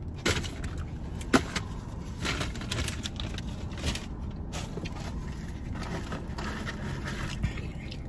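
Steady low hum inside a parked car's cabin, with scattered clicks and rustles as food packaging is handled; one sharper click comes about a second and a half in.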